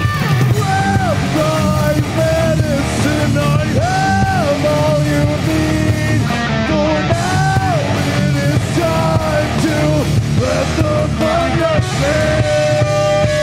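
Rock band playing live: distorted electric guitars, bass and drums, with a melodic line sliding between notes and a long held note near the end.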